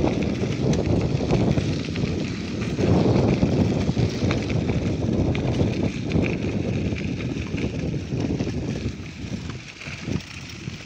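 Bicycle tyres rolling and crunching over a gravel dirt road, with the rattle of the bike carrying the microphone. The noise is steady and eases off somewhat near the end.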